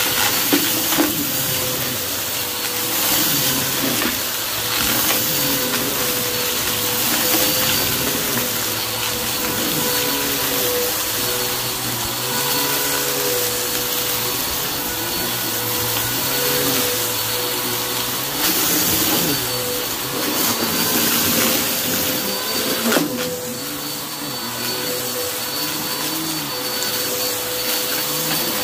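Upright vacuum cleaner running steadily over a shaggy rug, picking up confetti and glitter debris with scattered crunches and clicks. Under its steady motor note, a lower hum wavers up and down as the head is pushed back and forth.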